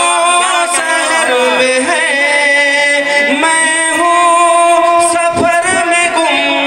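A man singing a naat into a handheld microphone, drawing out long held notes with wavering ornaments.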